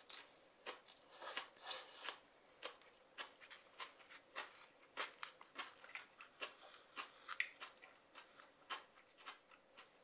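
Wooden chopsticks tapping and stirring thick ramen noodles in a bowl: a quiet run of irregular small clicks and taps, several a second.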